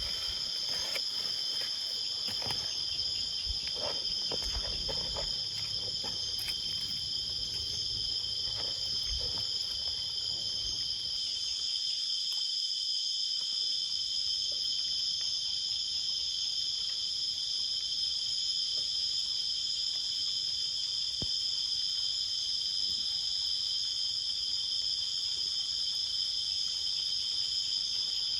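Insects chirring in a steady chorus at two high pitches, with a few faint knocks and handling clicks in the first ten seconds or so.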